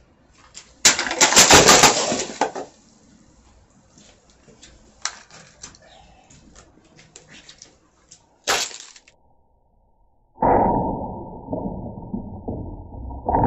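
Sharp impacts and breaking sounds as liquid-filled plastic bottles are struck and burst, with scattered clicks between them. From about ten seconds in, a loud, deep, muffled rush of noise takes over.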